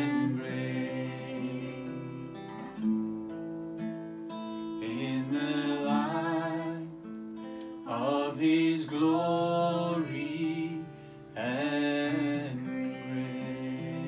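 A man sings a slow worship song over his own strummed acoustic guitar. The sung phrases come and go, with the guitar ringing on alone between them and near the end.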